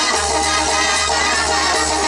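Loud huapango dance music played over a sonidero sound system, with a heavy, steady bass.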